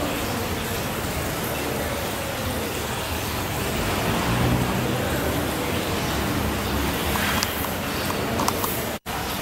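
Steady background hiss and rumble with a few light clicks a little over seven seconds in; the sound drops out for an instant just before the end.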